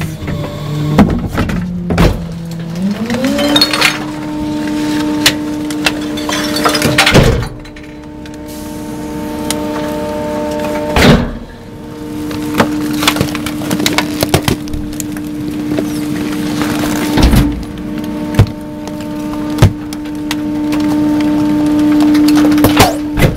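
Trash being handled in a garbage bin: plastic bags and boxes crackle, with scattered sharp knocks. Under it a steady droning tone glides up in pitch about three seconds in and then holds.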